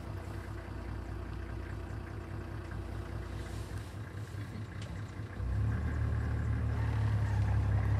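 Vehicle engine idling with a steady low hum that grows louder about five and a half seconds in.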